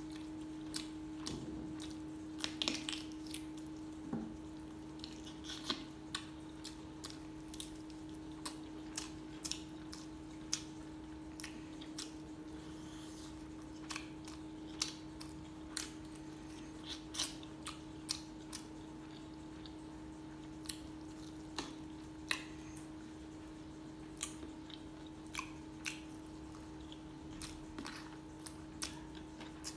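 Close-up eating sounds: chewing and lip smacking on chicken and rice eaten by hand, many short irregular wet clicks. A steady low hum runs underneath.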